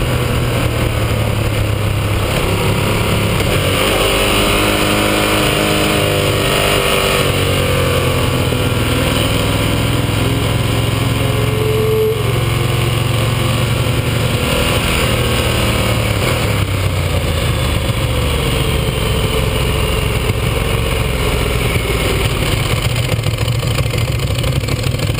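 Ducati 1198S's 1198 cc L-twin engine at speed on the track, its pitch rising and falling with throttle and gear changes, under a heavy rush of wind noise. The engine tones fall away near the end as the bike slows.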